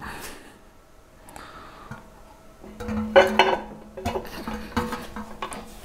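Metal clinks and scrapes of a Yamaha YT624EJ snowblower's auger assembly being worked by hand onto its shaft, mostly in the second half, as the gearbox hub catches on the key in the keyway.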